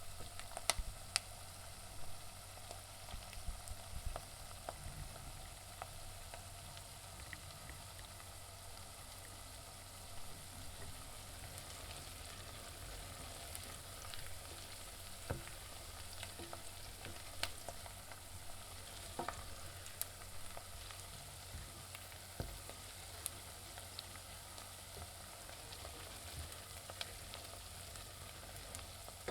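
Onions frying in hot oil in a pan: a steady sizzle with frequent small crackles and pops throughout.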